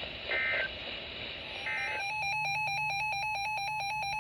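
Emergency Alert System data tones over a radio hiss: two short warbling bursts about a second and a half apart, the SAME end-of-message code closing a weather warning. From about halfway a different, faster-alternating two-tone data signal starts and runs on over a low hum.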